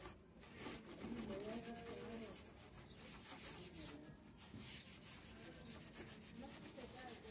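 Cloth pad soaked in wood polish being rubbed over a wooden table frame in repeated short strokes, a faint rubbing sound.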